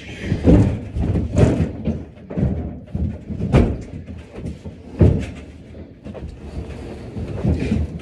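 Heavy wooden cabinet being moved on carpeted stairs: a series of dull thumps and bumps, with shuffling steps, the loudest knocks about three and a half and five seconds in.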